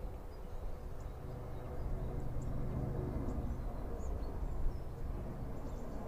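Outdoor ambience: a steady low rumble with faint, scattered bird chirps.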